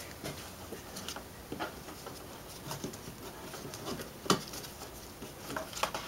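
Light scattered clicks and taps of a plastic ATV handlebar cover being handled and worked free, with one sharper click about four seconds in.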